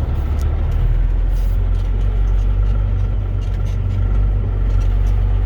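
Heavy truck's diesel engine running steadily with a deep drone, pulling slowly in low gear over rough, muddy ground.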